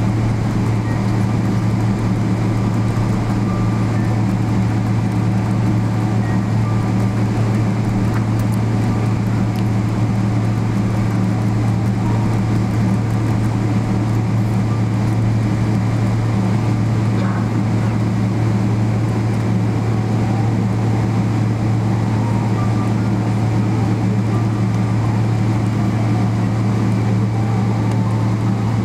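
Cabin noise inside a Boeing 777-300ER taxiing after landing: the GE90 engines at taxi idle give a steady low hum under an even rushing wash of noise.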